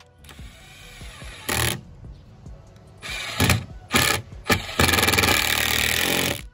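Milwaukee cordless impact driver driving screws into wooden bench boards. It comes in several short bursts of whirring and rapid hammering, then a longer run of hammering over the last second and a half or so.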